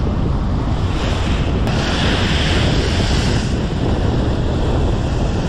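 Wind buffeting the microphone over the wash of sea surf on the shore. A wave surges in with a louder hiss at about two seconds and fades out a couple of seconds later.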